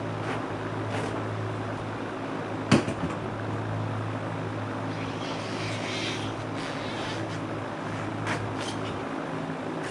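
Adhesive seam tape being pulled off its roll and pressed along a seam of OSB wall sheathing, a rough rasping for a second or so about halfway through, over a steady low hum. A single sharp knock about three seconds in is the loudest sound.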